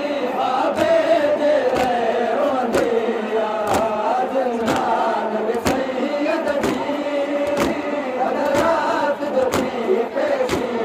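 A group of men chanting a noha in unison, with a sharp beat about once a second from their hands striking their chests together in matam.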